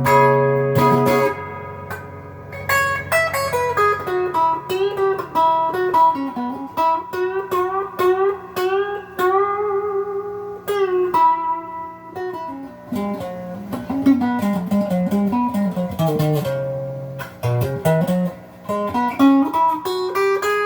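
Gearit Tele-style electric guitar played through an amp with the selector in the middle position, soap-bar P90 neck and humbucker bridge pickups on together, picking single-note licks with string bends. The combination gives an out-of-phase "goose honk" tone, which the owner puts down to a pickup magnet or wiring reversed at the factory.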